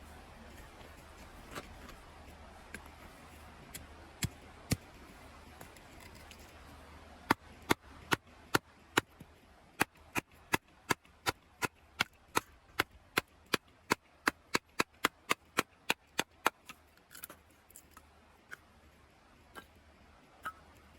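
Firewood being chopped for a campfire: a few scattered knocks, then a steady run of sharp strikes on wood, about two or three a second, lasting around nine seconds, then a few more scattered knocks.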